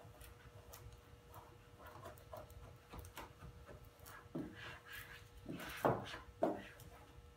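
Hand squeegee rubbing and scraping over textured carbon-fibre vinyl as it is pressed down dry onto a motorcycle's plastic knee panel. Short strokes come one after another, louder from about four and a half to six and a half seconds in, over a faint steady hum.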